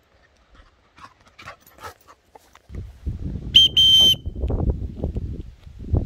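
Handmade wooden dog whistle of stabilised masur birch blown twice, about three and a half seconds in: a short shrill blast, then a slightly longer one, each a single steady high tone with fainter overtones. A low rumbling noise starts just before the whistle and continues under it.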